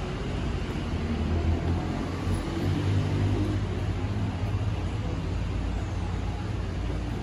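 Low, steady engine rumble, swelling slightly around the middle.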